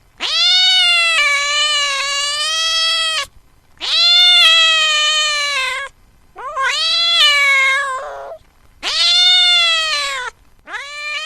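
A cat giving a series of long, drawn-out meows, five in a row, each lasting one and a half to three seconds and sliding up in pitch at the start.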